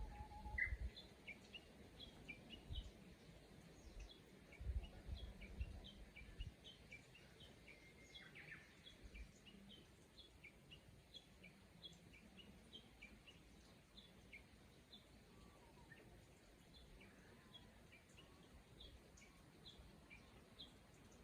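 Faint birdsong: many short, high chirps from small birds, repeating a few times a second. Low rumbles come and go in the first seven seconds or so.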